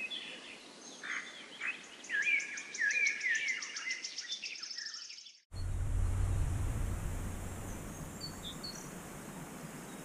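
A songbird singing: a run of short chirping phrases and a fast, high trill. About halfway through it cuts off abruptly, and a low rumble takes over with faint, scattered bird calls.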